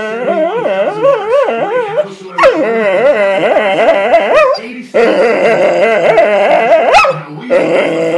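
A dog howling in long calls whose pitch wavers up and down, four howls with short breaths between them.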